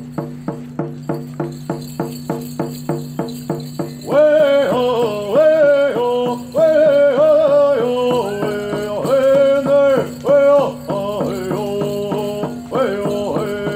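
Hoop dance music: an even drum beat of about three strokes a second over a low steady drone, with a sung melody coming in about four seconds in.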